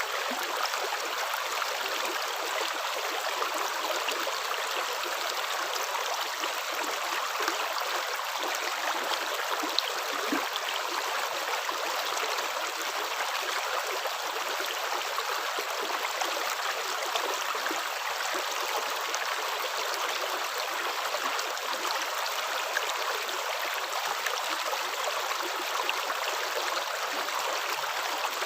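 Running water flowing steadily: an even, unbroken rush like a stream.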